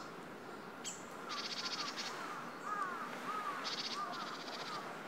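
Wild birds singing: one bird repeats short, curling whistled notes while another gives a rapid high trill in two bursts. A steady, faint background hiss runs underneath.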